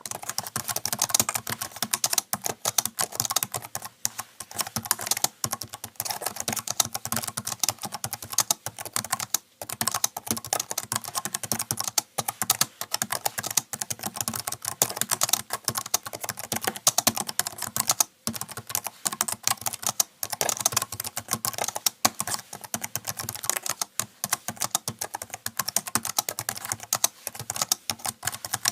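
Rapid keyboard typing: a dense, uneven stream of key clicks, with a couple of brief pauses.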